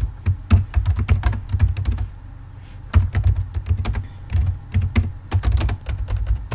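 Typing on a computer keyboard: rapid keystroke clicks in bursts, with a pause of about a second between two and three seconds in before the typing resumes.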